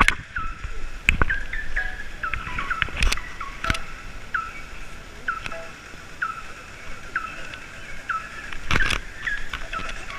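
Bicycle squeaking in a steady rhythm, a short falling squeak about every two-thirds of a second as it is pedalled, with a few knocks from bumps along the ride.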